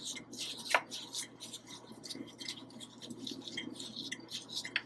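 Irregular scratchy rustling of a plastic-gloved hand rolling an egg-dipped coxinha in cornmeal in a plastic tub, with a sharper click about a second in.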